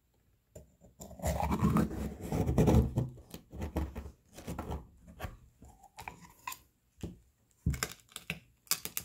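Knife blade scraping and prying at the hard shell of a freshwater river clam, metal grating against shell. It starts about a second in with a loud, dense stretch of scraping, then goes on as a string of shorter scrapes and clicks as the shell is worked open.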